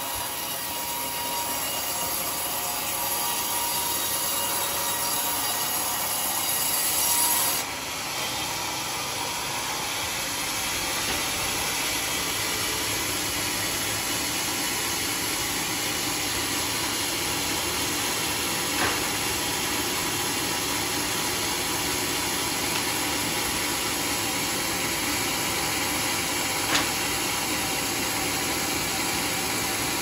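Homemade band sawmill running, its blade cutting an old coconut palm (glugu) log with a steady sawing noise. About eight seconds in, a high hiss drops away suddenly and the saw runs on, with two light clicks later.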